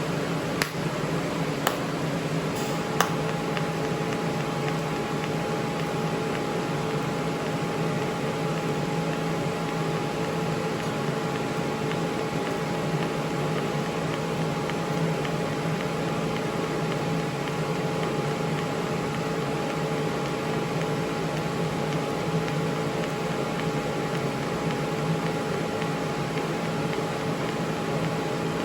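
DC TIG welding arc on 16-gauge steel, running as a steady hiss with a steady hum underneath, with a few light clicks in the first few seconds.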